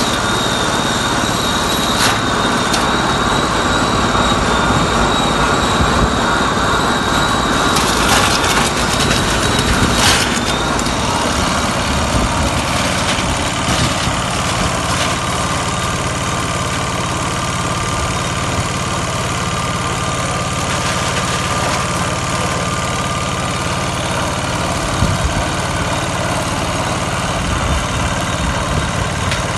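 Small chickpea threshing machine running steadily as dry chickpea plants are fed in by hand, with a few sharp knocks. A thin high whine fades out about ten seconds in.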